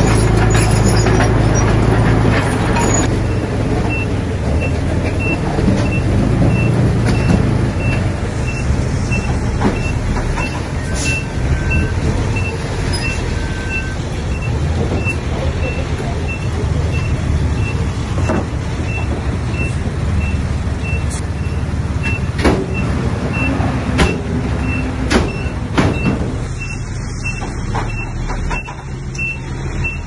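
Diesel engines of a crawler bulldozer and a dump truck running under load, with an evenly repeating reversing beep from about four seconds in until near the end and a few sharp clanks in the last seconds.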